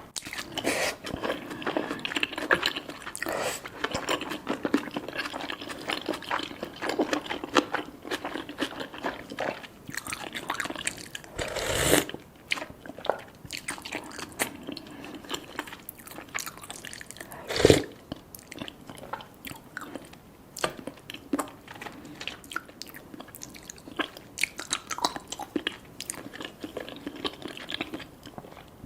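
Close-miked chewing and wet mouth sounds of someone eating, with many small clicks and smacks. Two louder sudden sounds stand out, about twelve seconds in and again near eighteen seconds.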